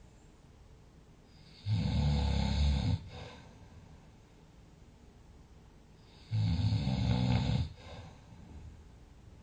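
Loud, deep snoring: two long snores about four and a half seconds apart, each followed by a short, softer breath out, with quiet breathing in between.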